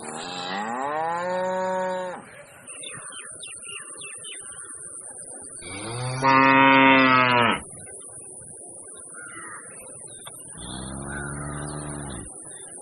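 Bull mooing three times, each call lasting under two seconds; the middle call, about six seconds in, is the loudest. A faint steady high-pitched whine runs behind the calls.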